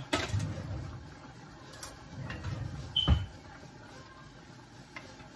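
Spoon and cooking pot being handled: scraping and light knocks, with one sharp metallic clink about three seconds in.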